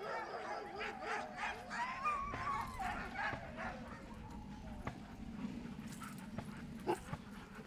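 Many sled huskies yelping and whining together, with gliding howl-like cries in the first few seconds that thin out afterwards. A low steady hum runs underneath from about two seconds in.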